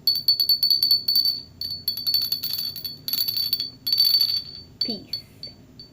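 Small bells jingling, shaken in rapid spells for about four and a half seconds, then a few single short rings near the end.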